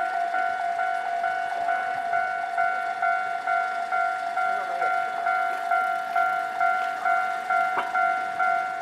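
Japanese railway level-crossing warning bell ringing steadily, an electronic ding repeating about three times a second, signalling that a train is approaching. A single sharp knock sounds near the end.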